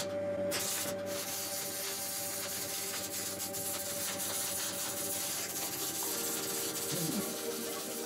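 MIG welder arc crackling steadily as a bead is laid on steel plate, with a short break near the start.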